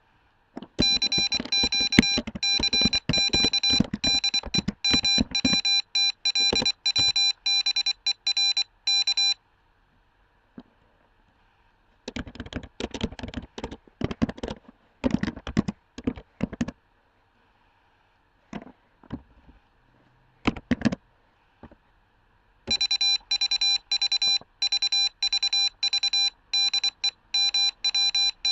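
Morse code sent by an Arduino Uno as a single steady beep keyed on and off in short and long tones, in a long run lasting about eight seconds and again from about two-thirds of the way through. In between come irregular clicks and taps with no beep.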